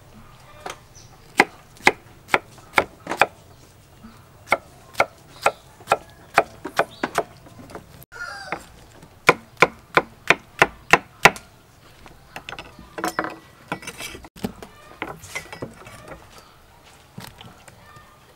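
Large kitchen knife chopping pineapple on a wooden chopping board: three runs of sharp strikes, about two to three a second, then softer, irregular knocks in the second half.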